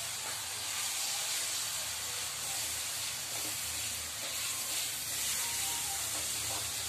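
Crumbled milk cake sizzling in hot desi ghee in an aluminium kadhai as it is stirred, a steady frying hiss.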